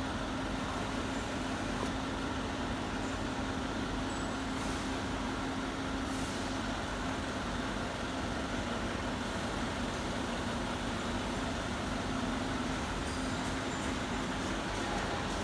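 A motor vehicle or machine engine running steadily at constant speed, with a continuous low hum.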